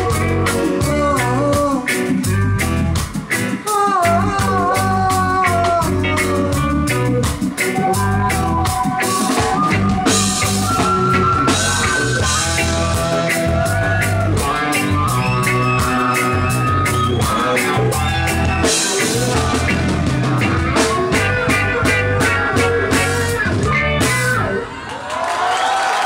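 Live reggae band playing with drums, bass and guitar, and a woman singing lead. Near the end the song stops and the crowd starts to cheer.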